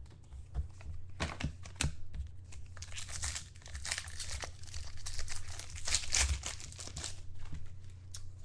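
Trading card pack wrappers crinkling and tearing as packs are ripped open and handled, a dense crackle through most of the stretch.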